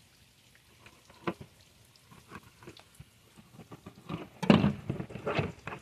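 Fillet knife scoring a scaled sheepshead, the blade crunching through scales and skin in short strokes. The strokes come sparse at first, with a few louder ones near the end.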